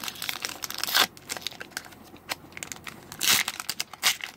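Crinkling and crackling of a foil booster-pack wrapper being handled, with many small sharp crackles and two louder rustles, about a second in and a little after three seconds.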